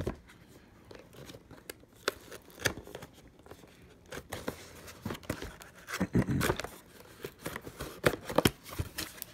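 Cardboard box being handled and pried open by hand: scattered scrapes, taps and rustles of the card, with a few louder scrapes and clicks.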